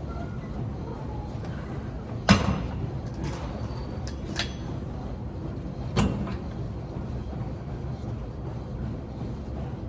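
Two sharp metallic clanks from a Cybex VR1 weight machine as a person shifts his weight around on it, the first about two seconds in and the louder, the second about four seconds later, with a few lighter clicks between. A steady low hum runs underneath.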